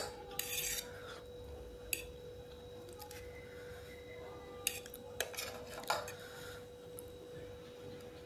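Metal fork clinking and scraping against a plate while twirling noodles: several sharp clinks, one at the start, one about two seconds in and a cluster a little past the middle, with short scrapes between.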